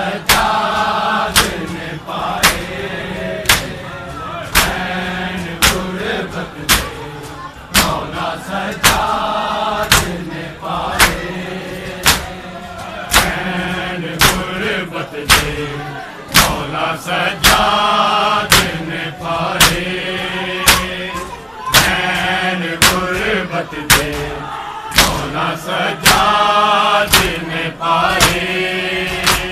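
A group of men chanting a Muharram nauha together, with sharp hand slaps on bare chests (matam) landing in rhythm about once a second.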